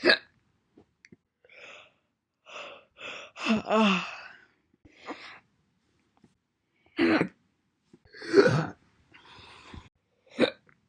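A woman hiccuping: about five sharp single hiccups at uneven gaps of one to four seconds, some with a short voiced squeak, with softer breaths and sighs between them.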